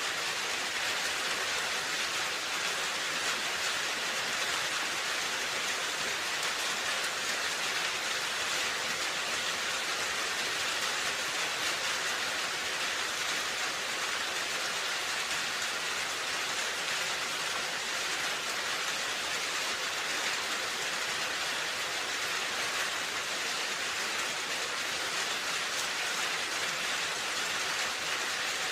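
Steady rain falling on a roof, an even hiss of drops without distinct single hits.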